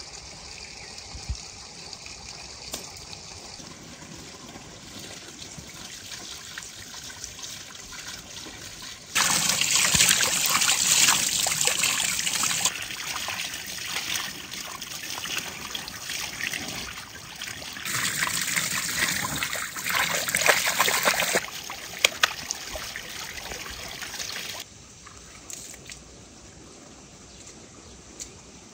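Running water splashing and trickling over a slab of raw beef as it is rinsed by hand, the flow loudest in two stretches. The first third is quieter outdoor background before the water starts.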